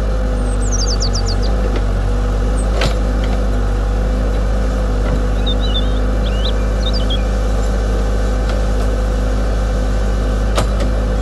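Radio-controlled model excavator's motor running steadily, a continuous low hum with a whine held on one pitch. Birds chirp briefly near the start and again in the middle, and there are two sharp clicks.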